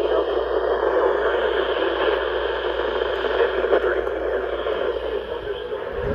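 Steady static hiss from a radio receiver, with no voice or tone coming through.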